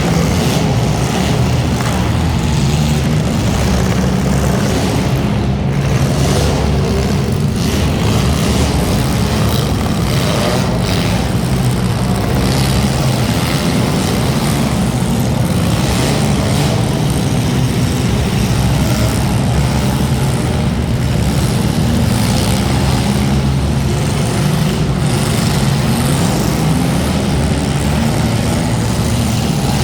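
Front-wheel-drive hobby-stock race cars running, a loud, steady engine noise without breaks.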